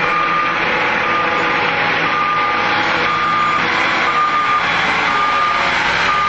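A vehicle reversing alarm beeping steadily, about one short beep a second, over a continuous engine noise.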